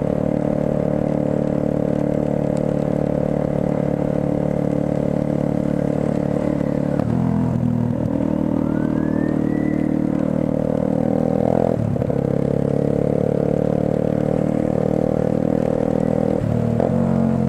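Motorcycle engine running steadily while riding on a wet road, its note dipping and changing about seven seconds in, again near twelve seconds and near the end as the throttle and gears change.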